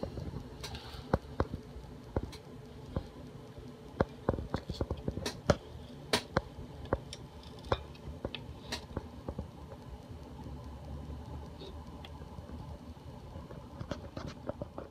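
Irregular sharp clicks and taps over a low steady hum, most frequent in the middle.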